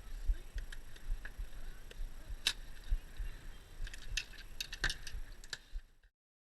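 Scattered light clicks and small knocks over a low rumble, like gear being handled; the sound cuts off abruptly about six seconds in.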